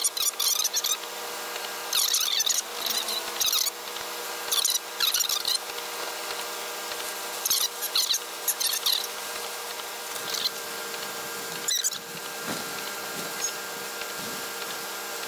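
Windshield wipers squeaking and chattering across wet glass, in short bursts every two to three seconds, over a steady hum.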